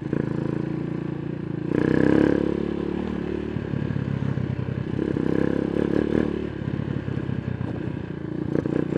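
Mojo 200 motorcycle running on the move, its exhaust opened up by removing the internal silencer baffle from the muffler. It is louder but not harsh, swelling twice: about two seconds in, and again around five to six seconds.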